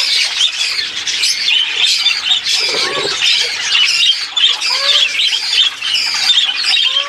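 Budgerigars chattering and squawking steadily, a dense stream of high warbling chirps, with a few short lower calls that rise and fall.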